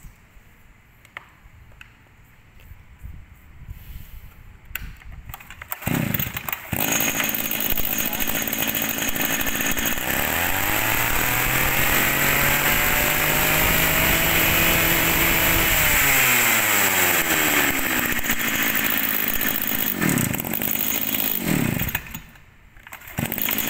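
Zenoah Komatsu BC3400 34cc two-stroke brush cutter engine starting about six seconds in after some quiet handling clicks. It is revved up high, held, and let back down to idle, then given a few short throttle blips. It drops away briefly near the end and picks up again.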